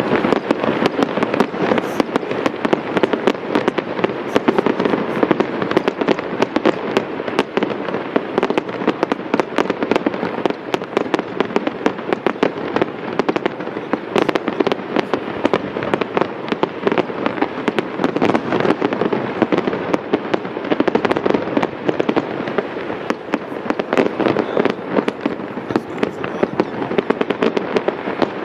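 Aerial fireworks shells bursting in a dense, rapid-fire barrage, many reports a second with no break, their bangs overlapping and echoing into a continuous rumble.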